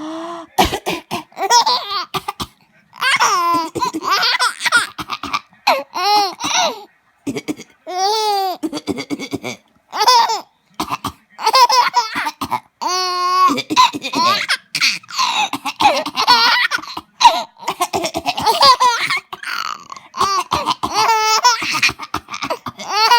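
A baby giggling and laughing in many short, high-pitched bursts, with coughs mixed in between the laughs.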